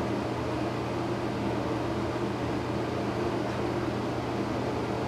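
Broan ceiling exhaust fan running steadily: an even rush of air with a constant low hum.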